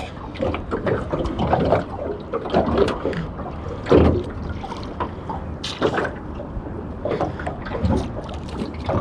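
Water splashing and trickling with scattered knocks and clicks on a small fishing boat while a freshly caught squid is handled; the loudest knocks come about four and six seconds in.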